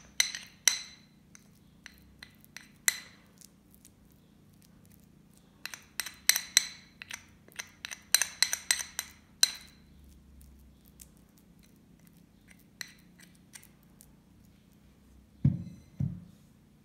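Metal fork clinking and scraping against a porcelain saucer as hard-boiled egg yolk is mashed and mixed, in bunches of quick ringing taps. Near the end come two duller knocks.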